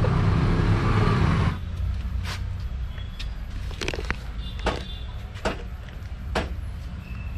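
Loud rushing noise that cuts off about a second and a half in. It gives way to a steady low hum and sharp clicks and light knocks, roughly once a second, from hands working a large plastic syringe on a hydraulic brake hose while bleeding it.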